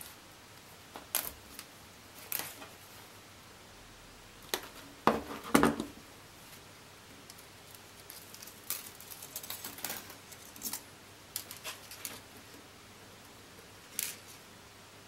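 Copper wire being handled, cut and twisted by hand on a work table: scattered small clicks, snips and rustles, with two sharper snaps about five seconds in.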